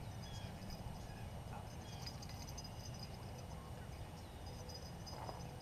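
Steady low wind rumble on the microphone with faint, scattered high bird chirps.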